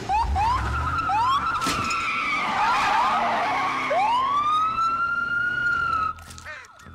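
Ford Crown Victoria sheriff's patrol car launching in a burnout, its tyres screeching as the wheels spin, with the engine revving underneath. About six seconds in the sound drops to a quieter siren yelping in a fast, even rise-and-fall.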